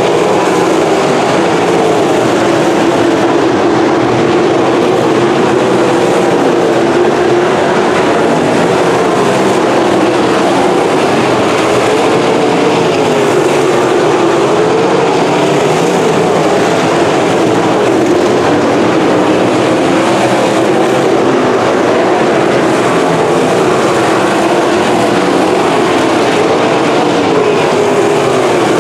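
Winged sprint cars racing, their V8 engines running loud and unbroken, the pitch rising and falling as the cars lap the track.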